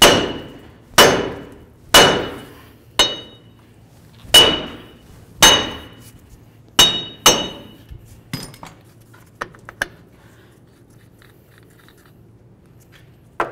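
Hammer blows on an axle nut threaded onto the front axle shaft of a 1999 Chevrolet Tahoe, knocking the wheel hub bearing assembly loose from the steering knuckle. About eight heavy metallic strikes come roughly one a second, each ringing briefly, followed by a few light clinks.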